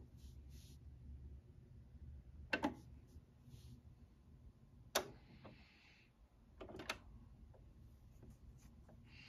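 Automatic mechanism of a JVC AL-F353 fully automatic turntable clicking through its start cycle: a double click about two and a half seconds in, a click with a brief soft whir at about five seconds, and two more clicks near seven seconds. A low steady hum lies under it.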